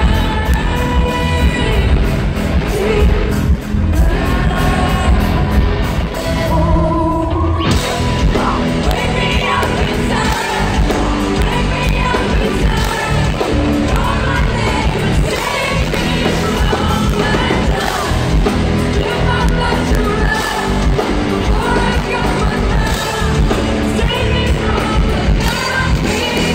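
Rock band playing live in an arena, heard through a phone's microphone in the crowd: a female lead voice sings over a sparse backing, and about seven seconds in the full band comes in and the sound turns loud and dense.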